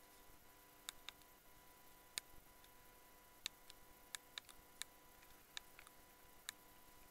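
Near silence: a faint steady high hum with about nine short, sharp ticks scattered at irregular intervals.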